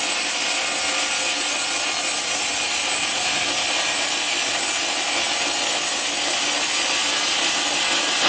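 Power sawing machine cutting steadily through ironwood, a continuous loud high-pitched hiss with a faint whine that holds unchanged throughout.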